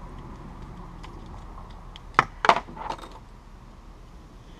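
Small hard plastic item clicking in the hands: two sharp clicks about a quarter second apart a little past two seconds in, then a fainter one.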